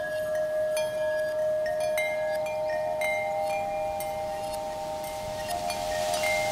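Metal chimes ringing: one low tone held throughout, with more strikes about every second or so adding higher ringing tones that overlap, and light high tinkles over the top.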